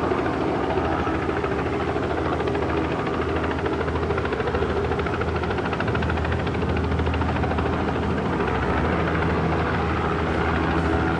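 Helicopter in flight, its rotor chopping steadily over a low engine hum at an even level.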